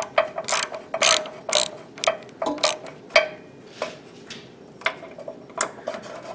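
Socket ratchet clicking in short runs, about two a second, as it backs out the freshly broken-loose bottom intake bolt of a 5 hp Briggs & Stratton carburetor.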